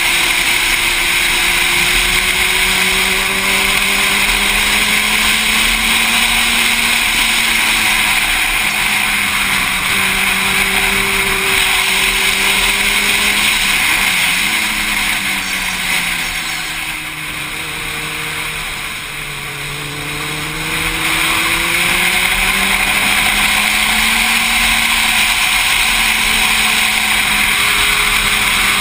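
Motorcycle engine running at speed under heavy wind rush on the microphone, its pitch sliding up and down through the corners. About two-thirds of the way through the engine note falls and the sound gets quieter as the rider rolls off, then rises again.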